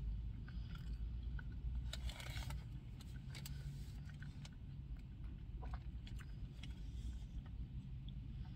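A person chewing a mouthful of burger with a few soft, wet crunches and mouth clicks, over the steady low rumble and hum of a car's cabin.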